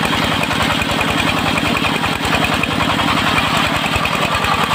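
Engine of a circular-saw sawmill running steadily with a fast, even chugging beat, under a steady rushing noise from the running saw rig.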